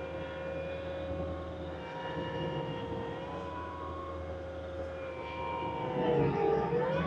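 Diesel engine of a compact loader machine running hard with a steady whine. About six seconds in the pitch sags as the engine bogs under load, then picks back up.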